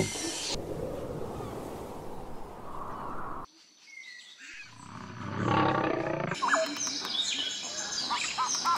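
A lion growling low, from about four and a half seconds in, after a steady breathy noise that cuts off suddenly. Birds chirp over the last couple of seconds.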